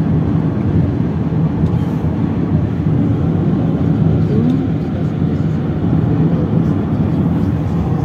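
Steady road and engine noise of a moving car, heard from inside the cabin.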